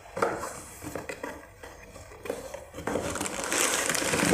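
Clear plastic bag crinkling and a cardboard box being handled as packed items are lifted out of it, with small knocks along the way. The crinkling grows denser and louder in the last second or so.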